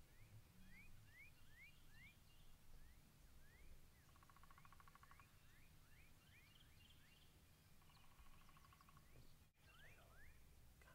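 Faint wild turkey gobbles: two pulsed rattles about a second long, around four and eight seconds in. A small songbird repeats quick rising chirps throughout.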